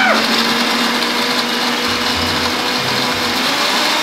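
Russell Hobbs countertop blender running steadily at full speed, grinding roasted hazelnuts and cane sugar into a powder.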